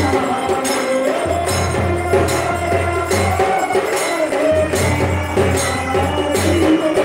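Devotional aarti music in the temple: a sung melody over a steady beat of jingling metal percussion.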